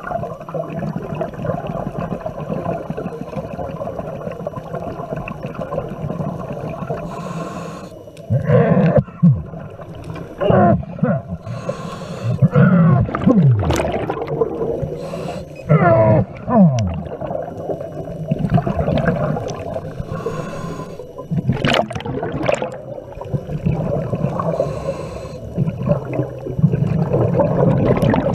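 Scuba regulator breathing heard underwater: a hiss on each inhale about every four to five seconds, and exhaled bubbles rumbling and gurgling in between, some with falling, groan-like tones.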